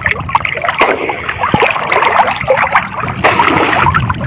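Choppy seawater splashing and sloshing right against the microphone as the camera bobs at the surface, a busy, irregular crackle of small splashes.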